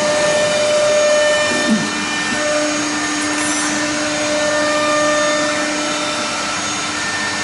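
Three-spindle pneumatic CNC router running: a steady hiss with a constant whine held at one pitch.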